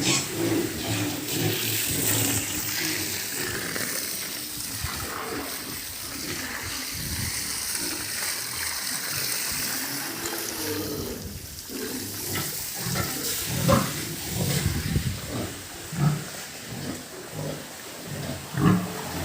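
Pigs grunting and squealing in their pens, with a few sharp, loud calls in the second half over a steady hiss early on.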